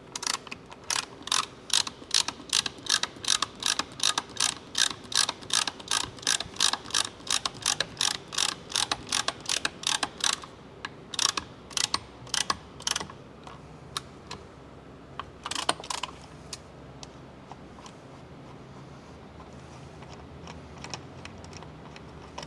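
Ratcheting clicks of a hand nutsert (rivet nut) setting tool as it is worked to set a nutsert in the sheet-steel A-pillar. There are about four clicks a second for the first ten seconds, then a few slower clicks, and two more a little past the middle.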